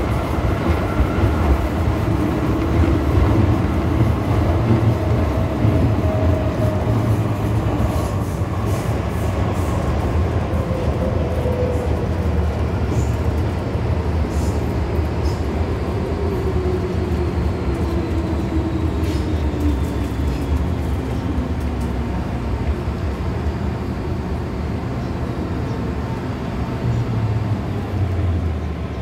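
Inside an MTR M-Train electric multiple unit slowing into a station: a steady low rumble of the car on the track, with the traction motors' whine falling in pitch as the train brakes.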